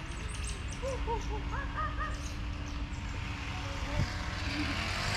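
Bird calling in a quick run of short rising-and-falling calls, about seven in two seconds, over a low murmur of background noise.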